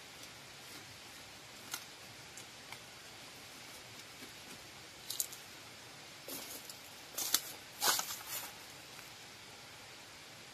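Dry leaves rustling and crackling in short, sharp bursts, a few at first and then a cluster of louder ones past the middle, over a steady faint hiss.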